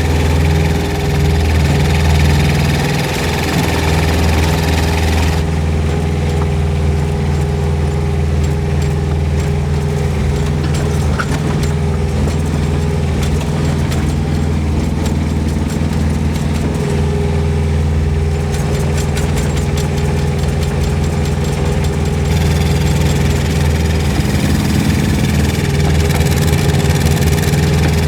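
Kubota diesel engine of a Rippa R10 mini excavator running steadily. The sound turns duller about five seconds in and brighter again a few seconds before the end.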